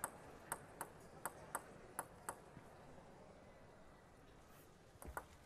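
A celluloid table tennis ball bounced lightly before a serve. It makes a light, faint clicking: one click, then three quick pairs of clicks in the first two seconds or so, a pause while the ball is held still, and a few more clicks near the end.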